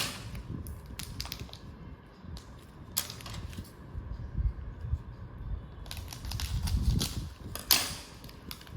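A chocolate bar's wrapper being cut and opened: scattered sharp clicks and crinkling, with a longer rustle of the wrapper near the end.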